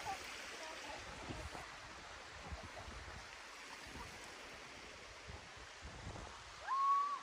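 Shallow creek water trickling steadily over rock ledges, with occasional low thumps. Near the end a short whistle rises and then holds on one note.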